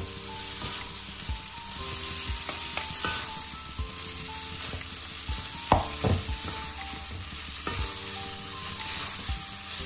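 Fried noodles sizzling in a pan with sauce while being tossed and mixed with two spoons, which click and scrape against the pan now and then.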